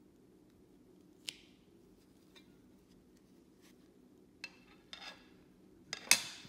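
Scattered sharp clicks and taps of a clear hard-plastic card case being handled, with a short rustle of foil card packaging about five seconds in; the loudest click comes near the end.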